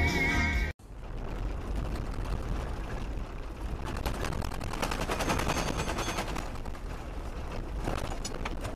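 A car driving on a gravel road, heard from inside the car: a steady tyre rumble with dense, rapid crackling and ticking of stones under the tyres and against the underbody.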